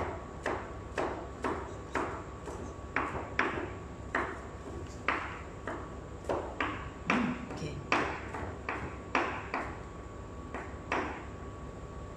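Kitchen knife chopping garlic on a cutting board: sharp knocks of the blade on the board, roughly two a second with uneven spacing, stopping shortly before the end.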